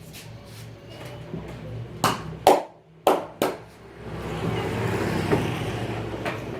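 Hands working on a head during a vigorous massage. Light slaps come first, then four loud, sharp slaps in quick succession about two seconds in. A couple of seconds of steady rubbing follow.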